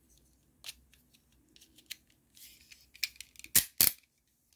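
Scattered clicks and small rattles of a plastic snap-off box cutter being handled, its blade slider pushed; the cutter is acting up. Two louder clicks come close together about three and a half seconds in.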